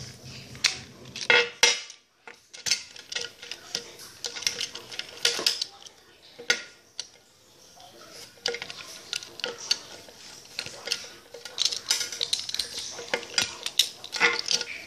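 Irregular clicks and light clinks of small plastic and metal parts being handled: a toy locomotive is taken apart with a screwdriver, and its chassis, wheels and loose screws knock against the table and each other. The clicks come in scattered runs with brief pauses.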